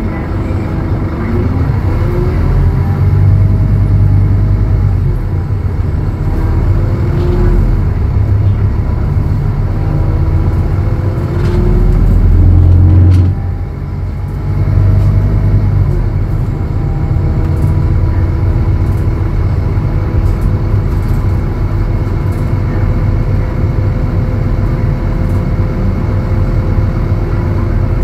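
Scania DC09 five-cylinder diesel engine and ZF Ecolife automatic transmission of a Scania K280UB city bus, heard from inside the cabin while driving. The engine pulls with rising whines as the bus accelerates several times, with a sudden short drop in loudness about thirteen seconds in.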